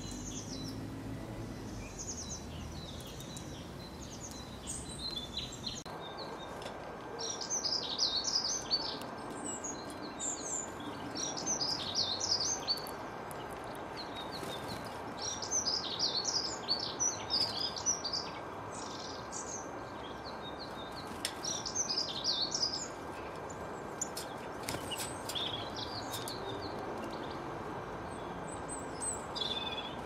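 Small songbirds chirping and singing in quick bursts of high notes, repeated every few seconds, over a steady background hiss.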